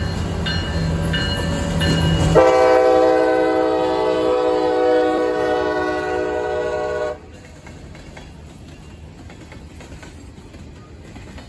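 CSX diesel locomotive sounding its multi-chime horn in one long blast of nearly five seconds, which starts about two seconds in and cuts off sharply. Before the horn, the engine's low rumble and a bell ringing in short, regular strikes. After it, the tank cars roll past with a quieter, steady rumble.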